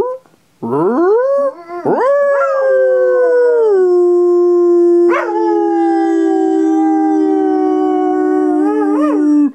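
Belgian Sheepdog (Groenendael) howling: a couple of short rising howls, then one long drawn-out howl from about two seconds in that sinks in pitch and is held until it stops suddenly at the end.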